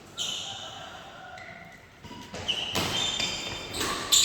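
Badminton rally on an indoor court: short sharp squeaks and racket hits, sparse at first and busier and louder through the second half.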